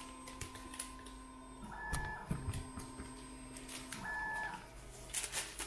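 Stepper motors of a DIY CoreXY 3D printer homing its axes: a steady motor whine runs for about a second and a half, stops with a short higher tone, then runs and stops the same way again. A lower motor hum follows as another axis moves, with a few light clicks near the end.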